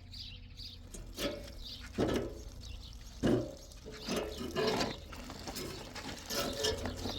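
Water splashing and pouring in irregular bursts, over a steady low hum.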